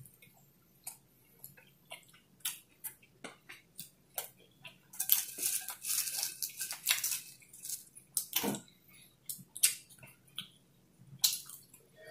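A person chewing with many small wet mouth clicks and smacks, with a dense crunching of potato chips around the middle.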